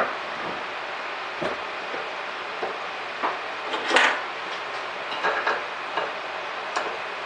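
Scattered metal clinks and knocks of a steel bar and hand tools being handled at a bench vise, about one a second, the loudest about four seconds in, over a steady background noise.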